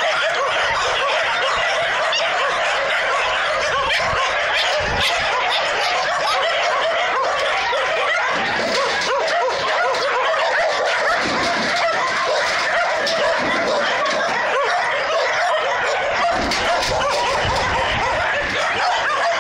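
A pack of shelter dogs barking and yelping together without a break, stirred up by a monkey at their fence.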